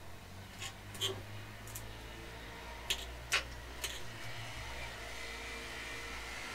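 A person chewing and smacking their lips while eating smoked eel: a handful of short, soft clicks over a low steady rumble.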